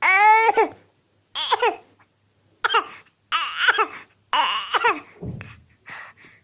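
A small child's fake coughing: a string of about six short, high-pitched voiced 'eh-heh' sounds, each falling in pitch, with a brief rougher, breathy cough about five seconds in.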